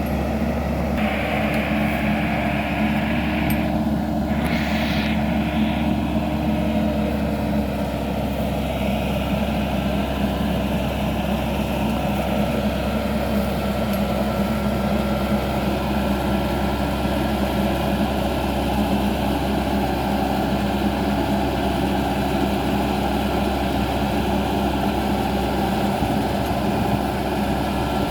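World rice combine harvester's engine running steadily at constant speed.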